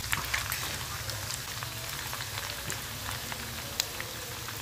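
Small dried anchovies (ikan teri) frying in hot oil in a pan: a steady sizzle with scattered crackling pops, and one louder pop near the end.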